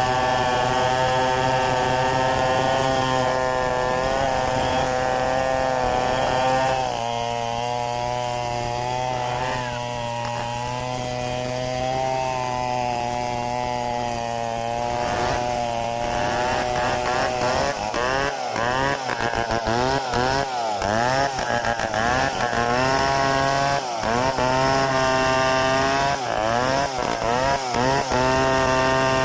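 Stihl 070 two-stroke chainsaw running at high speed. Its pitch drops for several seconds about seven seconds in, then it is revved up and down rapidly many times in the second half.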